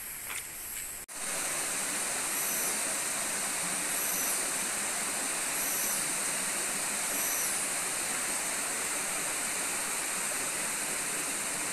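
Steady rushing of running water, like a forest stream, starting abruptly about a second in. Above it, a high-pitched call repeats about every second and a half over a steady high whine.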